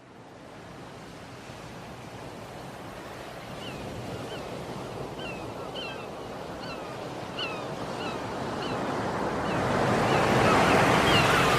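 Sea waves breaking, fading in from silence and growing steadily louder. From a few seconds in, a bird gives short, downward-sliding calls, about two a second.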